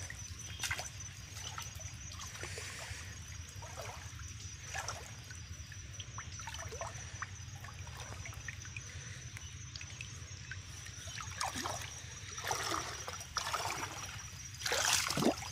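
Water dripping and trickling from a wet cast net as it is held up and gathered by hand, with a few louder splashes near the end.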